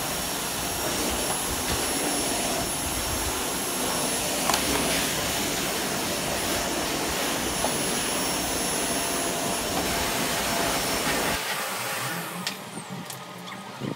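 Canister vacuum cleaner running steadily on a rug, a whirring rush with a thin high whine over it. It cuts off suddenly about eleven seconds in, leaving a few light clicks and knocks.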